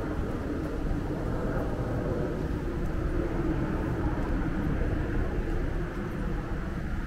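Steady low outdoor rumble, even throughout with no single event standing out.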